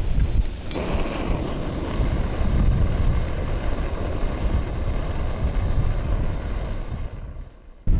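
SOTO single-burner gas stove lit under a kettle: two sharp igniter clicks, then the burner catches and hisses steadily, fading near the end. Wind rumbles on the microphone throughout.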